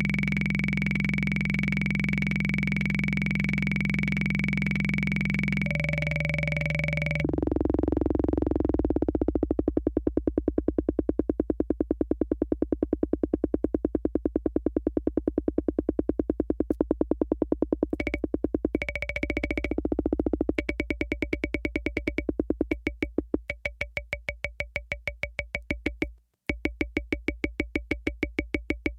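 Univox analog drum machine: electronic tones held steady for about seven seconds, then a fast, even stream of electronic beats that keeps going, with a short break near the end.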